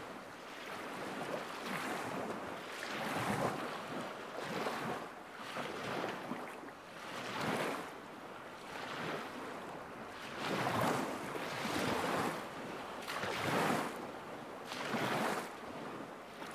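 Small lake waves lapping against the shore, one soft splash swelling and fading about every second and a half.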